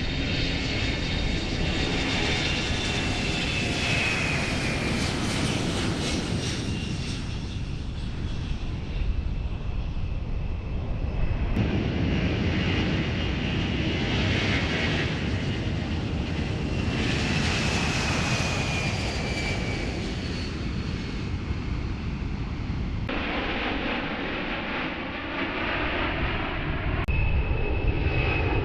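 C-17 Globemaster III's four Pratt & Whitney F117 turbofan engines running as the jet flies past: a steady heavy rumble with a high whine that slides down in pitch several times. The sound changes abruptly at a few points, like cuts between shots.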